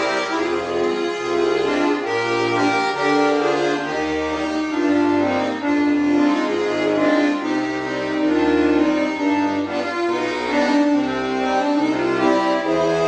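Tula bayan (Russian button accordion) playing a slow folk melody over held chords, with the left-hand bass notes changing every second or so.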